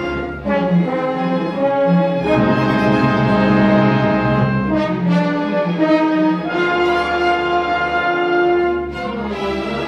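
Orchestral music, brass and strings holding long chords that change every second or two.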